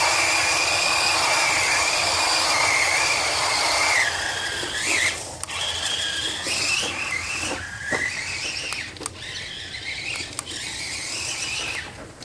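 Electric RC car's Titan 550 12-turn brushed motor and drivetrain whining under throttle: a loud, steady high whine for the first four seconds, then quieter and wavering up and down in pitch as the speed changes, with a few sharp clicks.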